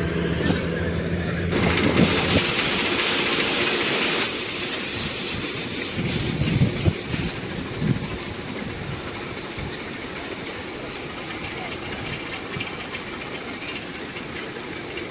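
Combine harvester machinery running: a steady engine hum for about the first two seconds, then a loud hissing rush for a few seconds, settling into a lower rumbling noise.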